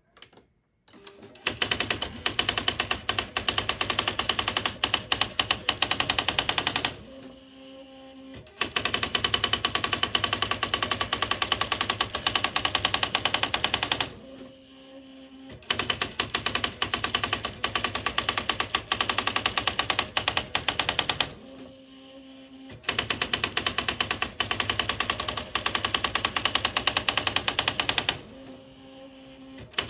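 Smith Corona SD 680 electric typewriter printing in fast runs of key strikes, each run about five to six seconds long. Four runs are separated by short pauses that hold a low steady hum.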